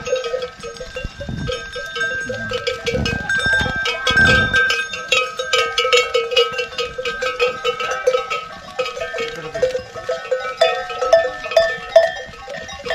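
Many neck bells on a passing flock of sheep and goats, clanking and jingling irregularly and overlapping one another.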